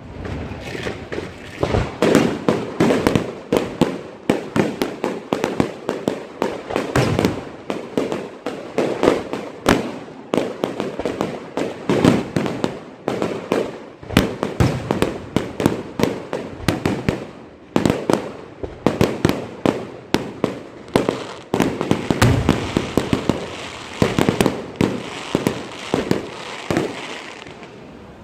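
Fireworks going off in quick, irregular succession: sharp bangs, several a second, overlapping one another, thinning out briefly near the end.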